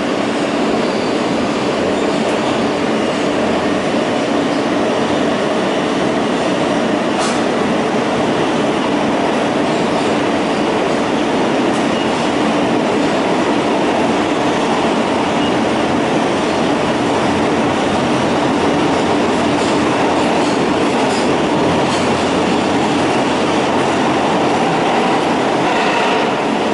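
New York City subway train heard from inside the car, running through a tunnel: a loud, steady rumble of wheels and motors, with a few sharp clicks.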